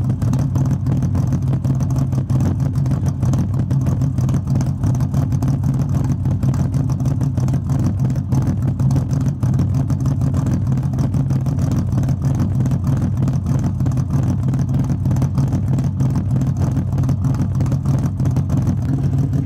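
Nissan Laurel SGX (C130)'s six-cylinder engine idling steadily, heard at its exhaust tip.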